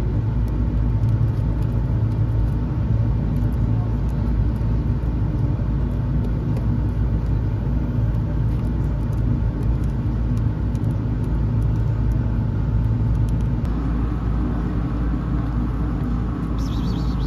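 Steady low mechanical rumble with a constant hum, like a running engine close by, shifting slightly in tone about fourteen seconds in.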